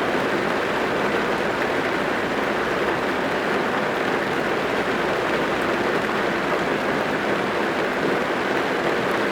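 Rain falling on a car's body and windows, heard from inside the cabin: a steady, dense patter.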